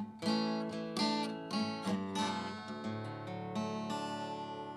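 Acoustic guitar played alone: a closing run of picked notes and chords at the end of a song, the last chord left to ring and fade away.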